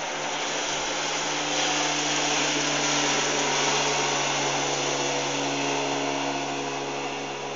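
60 hp outboard engine running steadily with the boat under way, its drone under a loud rush of wind and water. The rush swells a couple of seconds in and eases toward the end.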